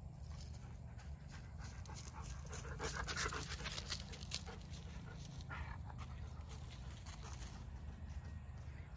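A dog panting close to the microphone: quick, breathy breaths, loudest from about two and a half to four and a half seconds in.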